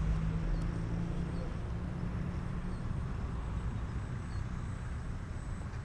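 Ugly Stick RC model plane's electric motor and propeller droning steadily at a distance in powered flight, over low wind rumble. The drone is clearest for the first couple of seconds and then fades.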